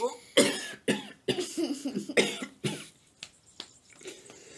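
A man coughing hard after choking on a sip of coffee: about six harsh coughs in the first three seconds, then a few weaker ones.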